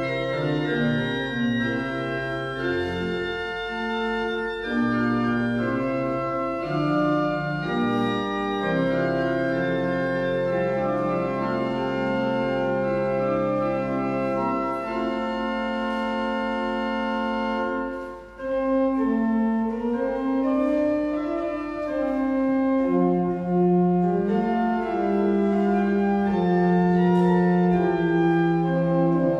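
Church organ playing slow, sustained chords of a prelude, the chords changing every few seconds, with a brief break between phrases about 18 seconds in.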